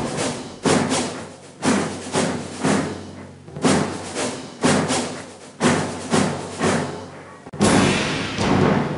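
Background music: a slow orchestral piece with heavy drum hits about once a second, each dying away before the next.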